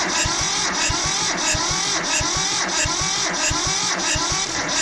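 Old Mitsubishi diesel tractor engine cranking on its starter motor without firing, a steady rhythmic chug that repeats about every 0.7 s. The engine won't catch, which the owner puts down to low compression from piston rings stuck after long sitting.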